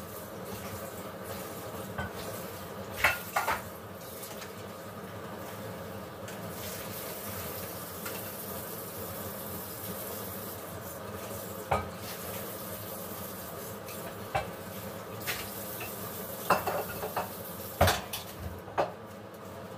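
Utensils and dishes clinking and clattering now and then over a steady hiss, with a cluster of knocks in the last few seconds.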